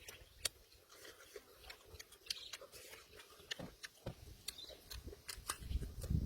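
A person eating cooked cow intestine close to the microphone: irregular wet mouth clicks and smacks of chewing, with a low rumble of handling and eating growing louder near the end.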